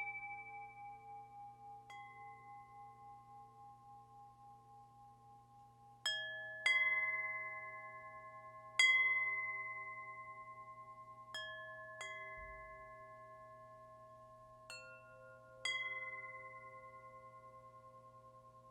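Wind chimes ringing, struck irregularly about nine times with gaps of up to four seconds, each clear ringing tone fading slowly and overlapping the next.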